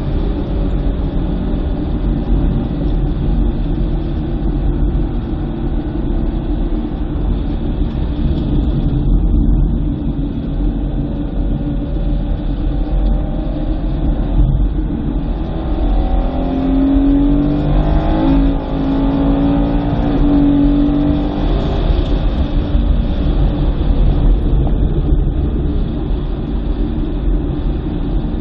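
2009 BMW M3's V8 engine pulling hard on track. Its pitch rises and falls with throttle and gear changes, clearest about two-thirds of the way in, over steady road and wind noise.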